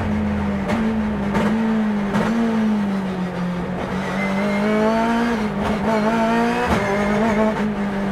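Turbocharged BMW S14B20 inline-four of a race car, heard from inside the cabin, running hard on track: the revs ease in the first half, then climb again and again from about halfway, broken by quick upshifts of the paddle-shifted sequential gearbox. Several sharp cracks punctuate the engine note.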